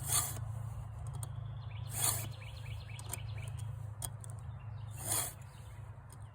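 Chainsaw file rasping across the cutters of a .325 semi-chisel saw chain during hand sharpening: three single strokes, near the start, about two seconds in and about five seconds in, over a steady low hum.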